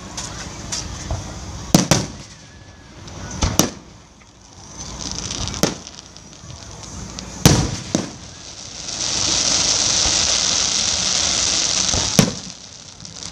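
Fireworks display: about five sharp bangs of aerial shells bursting, one to two seconds apart. From about nine seconds in, a steady loud hiss lasts about three seconds before another bang.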